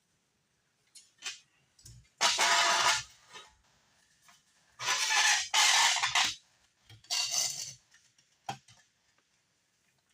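Metal scraping and rubbing as a copper exhaust pipe is worked through a sheet-metal flange in the wall: three long scrapes of about a second each, with a few short knocks between.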